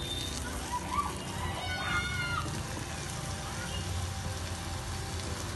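Wet vegetable mash frying over a high flame and being stirred with a slotted spatula in a non-stick pan: a steady sizzle with wet sloshing and scraping, over a low hum.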